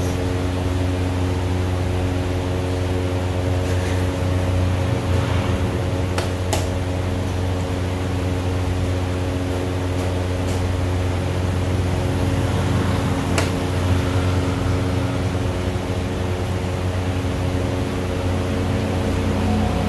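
Steady machine hum with several fixed low tones, like a fan or air-conditioning unit running, with a few faint sharp clicks scattered through it.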